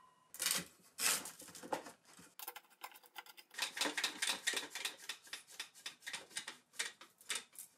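A one-handed bar clamp being squeezed tight, its trigger ratcheting in a quick run of clicks through the second half. A few knocks of handling come before it.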